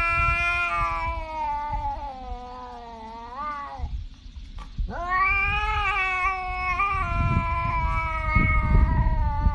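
Tabby cat yowling in two long, drawn-out calls: the first bends upward near its end before dropping away, and the second starts about five seconds in with a quick rise, then holds a steady pitch.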